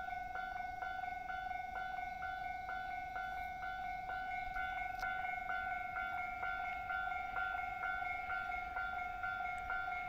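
Japanese railway level-crossing warning bell ringing without pause, a steady tone with a ringing strike about three times a second.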